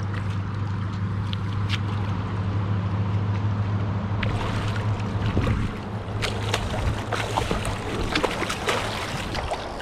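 A hooked coho salmon splashing and thrashing at the surface of shallow river water as it is brought in, with a run of sharp splashes from about four seconds in over sloshing, gurgling water. Underneath is a steady low hum that fades after about six seconds.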